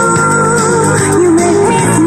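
A pop song playing, with a sung melody of long held, gliding notes over a backing track.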